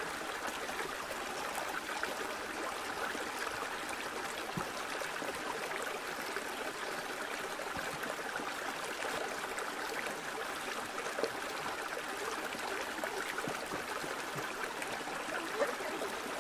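A small, shallow river running over rocks and stones, a steady rush of water.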